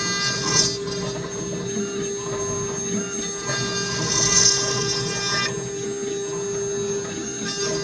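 CNC router spindle running with a steady hum while its end mill cuts into a wooden workpiece. The cutting hiss swells about half a second in, again around four seconds in, and near the end.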